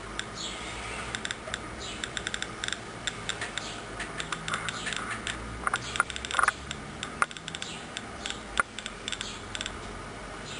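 Homemade Geiger counter clicking at random, irregular intervals, sometimes several clicks in quick succession, as its tube detects radiation.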